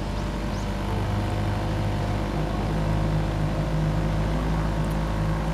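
Small lake tour boat's engine running steadily under way: an even, low hum that holds the same pitch throughout.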